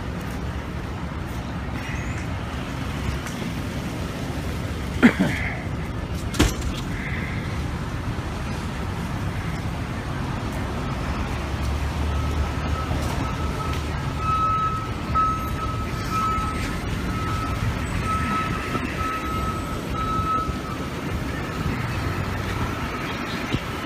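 City street traffic with vehicle engines running, a steady low rumble. About five seconds in there is a sharp sound that falls quickly in pitch, then a sharp click a second later. From about twelve seconds in, a high steady tone pulses on and off for some nine seconds.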